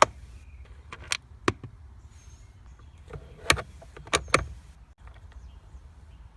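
A handful of sharp clicks and knocks from a Phillips screwdriver and small screws being worked out of a car's plastic steering column cover. The loudest come in a quick group past the middle.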